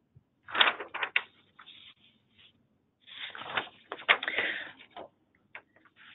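Irregular rustling and sharp clicks, like objects or paper being handled, in two short spells: one just after the start and a longer one in the middle.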